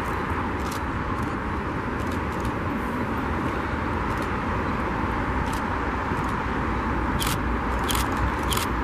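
Steady low rumble and hiss of a train approaching in the distance, growing slightly louder near the end, with sharp clicks about every two-thirds of a second in the last couple of seconds.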